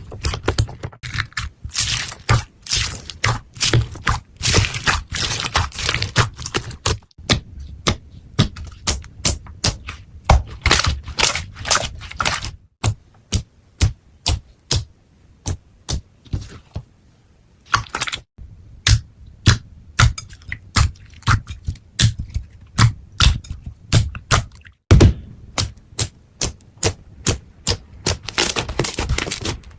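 Slime being squeezed and poked, making quick irregular clicks and sharp pops with soft low thuds. The pops thin out for a few seconds about halfway through.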